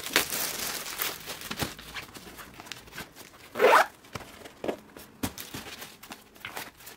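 Plastic packaging wrap crinkling and tearing as it is pulled off flat-packed fabric storage boxes. About three and a half seconds in, a short loud rasp comes as a grey fabric box is pulled open into shape, followed by a few light knocks.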